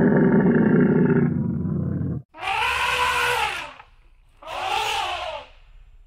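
Animal calls: a long, loud, low call that cuts off abruptly about two seconds in, then two shorter calls about two seconds apart that rise and fall in pitch.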